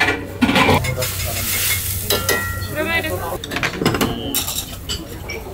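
Food sizzling and frying in a hot iron wok, with clinks and knocks of metal utensils and pans over a steady low hum.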